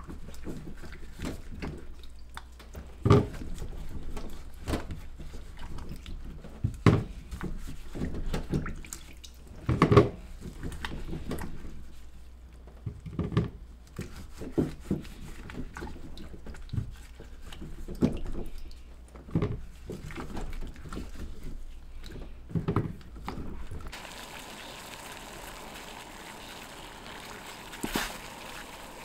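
Raw taro corms being scrubbed by gloved hands in a bowl of water: irregular splashing and sloshing, with several louder splashes. About four-fifths of the way through it gives way to the steady hiss of water at a rolling boil.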